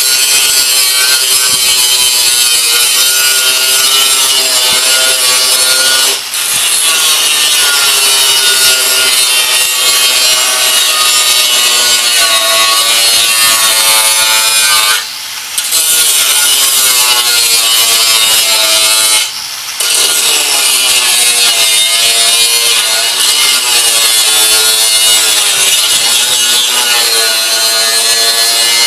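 Angle grinder with a cutoff wheel cutting through the rusted steel of a Craftsman riding-mower deck. It makes a loud, harsh screech whose pitch wavers as the wheel bites. It eases off briefly three times, at about 6, 15 and 19 seconds in.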